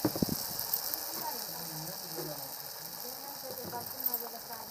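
Kuttu-batter pakoras deep-frying in hot oil in an aluminium kadai: steady sizzling with rapid crackling pops, and a few sharp clicks right at the start.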